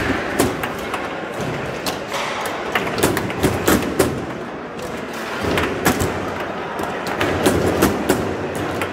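Foosball play: irregular sharp knocks and thuds of the hard ball being struck by the rod men and hitting the table walls, over a steady background din.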